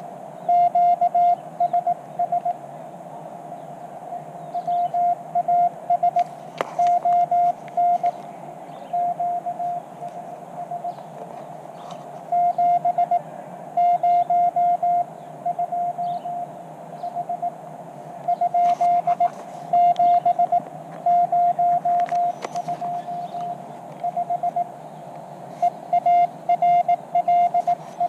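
Morse code (CW) from a portable ham radio transceiver: a single mid-pitched tone keyed on and off in dots and dashes over steady receiver hiss, with a few sharp clicks along the way.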